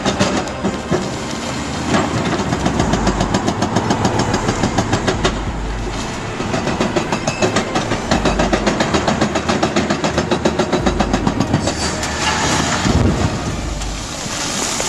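A heavy vehicle or machine running, with a fast, even rhythmic clatter that shifts near the end.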